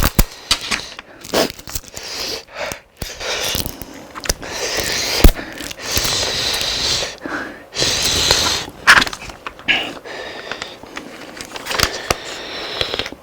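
Close-up eating sounds: crunchy bites and chewing with many sharp crackles, and several hissy stretches lasting a second or two.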